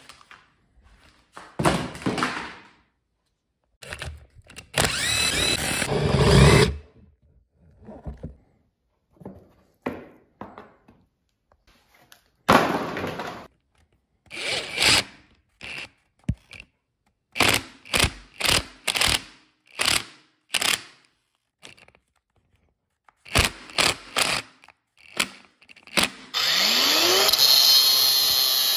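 Power driver unscrewing bolts in a series of short whirring bursts. About 26 seconds in, an angle grinder spins up with a rising whine and then cuts metal steadily.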